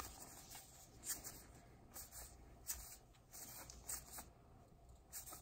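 Faint, irregular soft flicks and slides of Topps baseball trading cards being leafed through by hand, one card moved past another every second or so.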